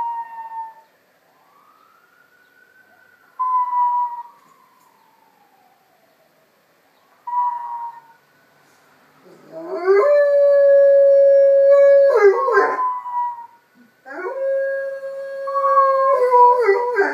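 A dog howling at a siren: a few short howls over a faint rising and falling siren wail, then two long, loud howls about ten and fourteen seconds in, each held on one pitch and breaking up at the end.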